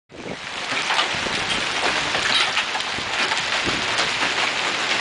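Hailstorm: a steady hiss of heavy rain and hail with many sharp clicks of hailstones striking hard surfaces. It comes up quickly at the start.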